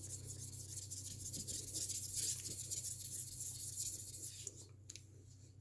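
Shapton 12K ceramic sharpening stone being rubbed on a wet diamond lapping plate to flatten it, a continuous gritty scraping that stops about four and a half seconds in. A low electrical hum runs underneath.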